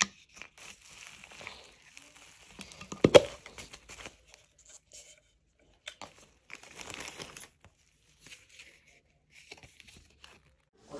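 Gift packaging being torn and crinkled by hand in irregular bursts, with a sharper, louder crackle about three seconds in.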